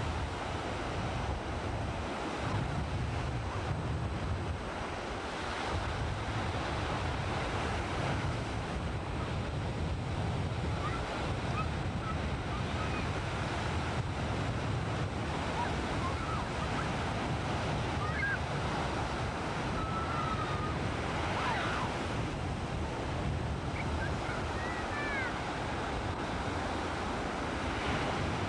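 Ocean surf breaking and washing up the beach, steady throughout, with wind gusting on the camcorder microphone as a low rumble.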